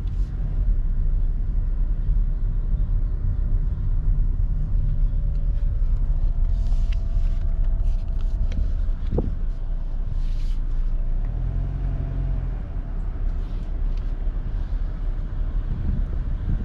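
A car driving along, its engine and tyres making a steady low rumble with a few faint ticks over it.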